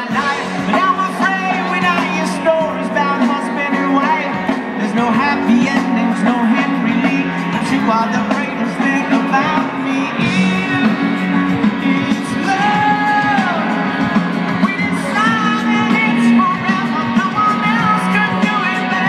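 Live rock band playing loudly with a singer, heard from within the audience, with yells from the crowd.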